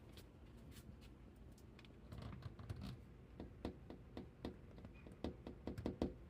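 A raccoon eating cat food: faint, irregular clicks and scratches of chewing and food shifting in the dish. They pick up about two seconds in, with a short rustle.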